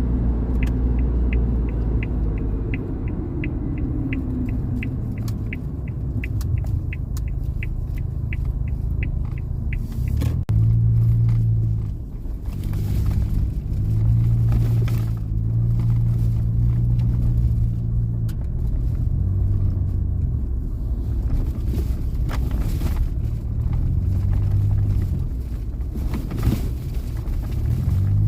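Suzuki Jimny's engine running while driving. Its low pitch steps up and drops back several times as the car accelerates and shifts. Through the first ten seconds there is a regular light ticking, about three times a second.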